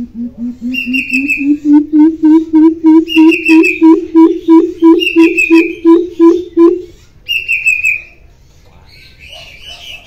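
Greater coucal calling: a long series of deep, evenly spaced hoots at about three a second, rising a little in pitch at first, which stops about seven seconds in.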